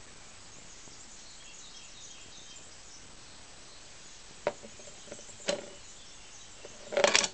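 Faint steady background hiss, with two sharp clicks about halfway through and a short, louder cluster of clicks and rustling near the end.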